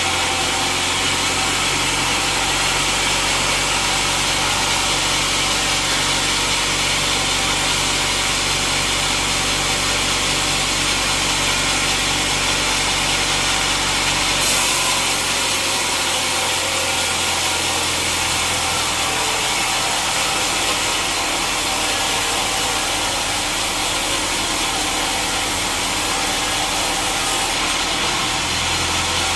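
Sawmill saw running and cutting through a teak log, a steady loud mechanical noise with a hiss. About halfway through the low hum drops away and the hiss grows brighter, and this reverses near the end.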